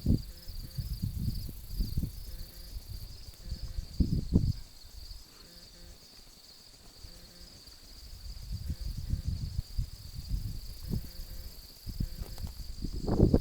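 Insects chirping steadily outdoors in a high, finely pulsing trill. Low rumbling noise comes and goes over it, dropping away for a couple of seconds around the middle.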